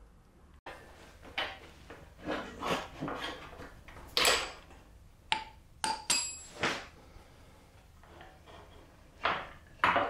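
Metal clinks and knocks as the rear axle is worked out of a Yamaha Ténéré 700's rear wheel and swingarm: scattered short strikes, the loudest a little after four seconds, with a brief metallic ring about six seconds in.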